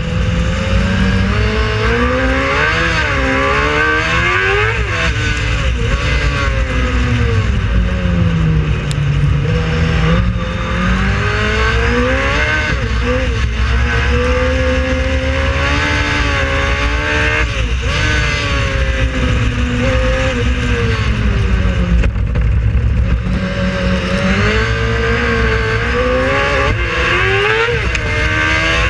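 Speedcar race car engine running hard on a circuit, its pitch climbing under acceleration and falling back at gear changes and braking, again and again.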